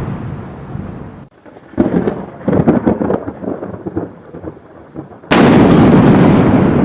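Thunder: a rolling rumble dies away, then a run of sharp crackling cracks from about two seconds in, and a sudden loud thunderclap about five seconds in that keeps rumbling.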